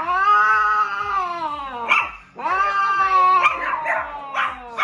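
Cats yowling during mating: two long drawn-out yowls, each rising and then falling in pitch, with rougher, noisier cries between them.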